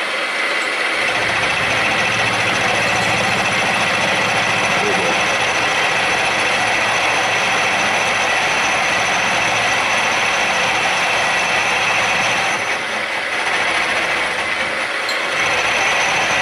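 Milling machine face-milling cast iron with a three-flute face mill carrying triangular carbide inserts, hand-fed on a deeper pass of about 25 thousandths: the spindle runs with a steady cutting noise, a heavier low rumble coming in about a second in and easing off briefly twice near the end. The iron is cutting cleanly, as cast iron should.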